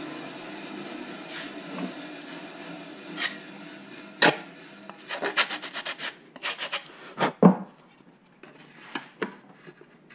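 A hand sanding block rubbed in quick back-and-forth strokes along the edge of a cut G10 fiberglass sheet, trimming it to size. The strokes come in fast clusters in the middle and thin out to a few light taps near the end, after a steady machine whir dies away over the first few seconds.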